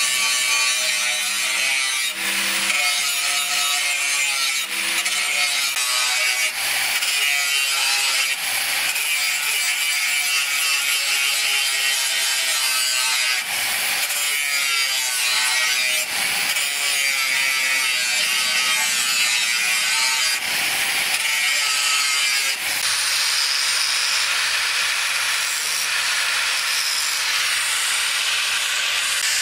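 Angle grinder grinding a steel knife blank: a steady hiss of the abrasive disc on metal over the motor's whine, which wavers in pitch as the load changes. Several brief dips come as the disc is eased off and set back on the steel.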